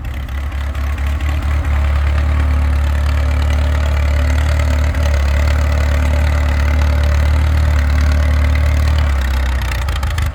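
A motor vehicle's engine running steadily with a deep, low hum, uneven for the first second or two, then even, and dropping away near the end.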